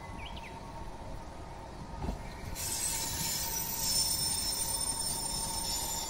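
A train on the line running with a low rumble, its wheels breaking into a high-pitched metallic squeal of several tones about two and a half seconds in.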